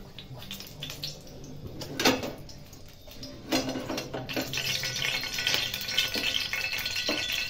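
Metal frying pan knocking and scraping on a gas stove, with a sharp clank about two seconds in. From about halfway a steady hiss with small crackles sets in.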